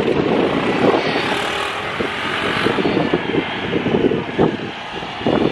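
Engines of ATVs and side-by-side off-road vehicles running nearby, a steady loud rumble with irregular flutter.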